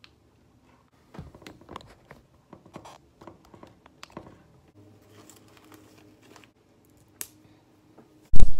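Handling noise of a clip-on lavalier microphone being fiddled with: faint rustles and small clicks, then loud thumps near the end as the mic is rubbed and knocked.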